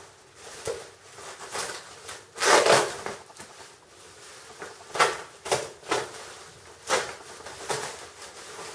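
Plastic bubble wrap crinkling and rustling in irregular bursts as hands pull and handle it. The loudest crinkle comes a little before the middle.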